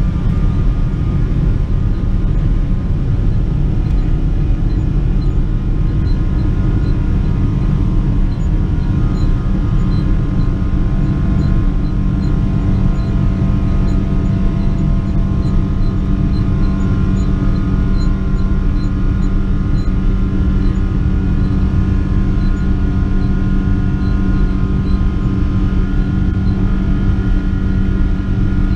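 Cabin sound of a Boeing 777-300's Rolls-Royce Trent 800 engines at takeoff thrust during the takeoff roll and climb-out. A loud, steady rumble runs under a high, even engine whine.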